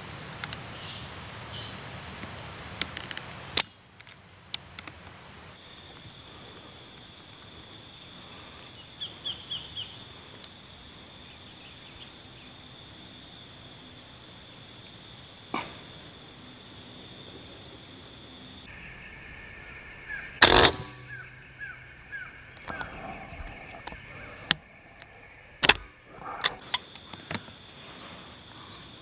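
Steady high-pitched insect buzzing in the trees, broken by several sharp cracks of an air rifle being fired, the loudest about two-thirds of the way through. A few short chirps come in between.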